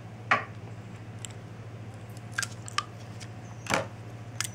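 Several short clicks and taps of plastic syringes being handled and laid on an examination table, the loudest about a quarter second in, over a steady low hum.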